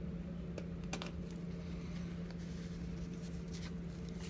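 Faint rustling and a few light clicks of trading cards being handled and set down by gloved hands, over a steady low hum.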